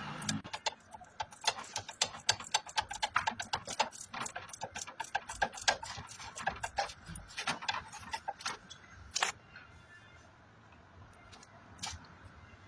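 Rapid, irregular clicks and taps, several a second, thinning out after about nine seconds to a few scattered clicks.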